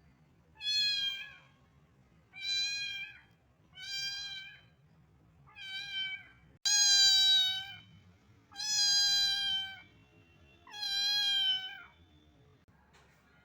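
Kitten meowing repeatedly: seven high-pitched, fairly level meows, each about a second long, roughly one every second and a half.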